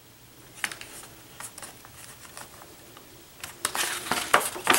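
Light taps and clicks of long fingernails on the paper of a spiral-bound sketchbook, then, about three and a half seconds in, a louder rustle as a page is lifted and turned.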